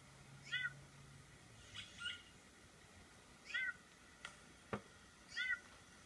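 White-necked thrush calling: four short nasal calls, each rising then falling in pitch, about every one and a half to two seconds. Two faint clicks come between the third and fourth call.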